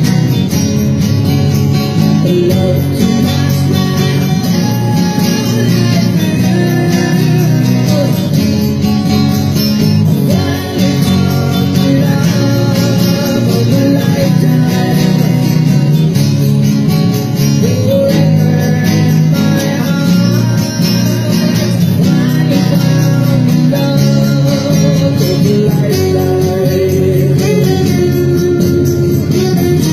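Steel-string acoustic guitar played solo, a steady run of chords and picked notes.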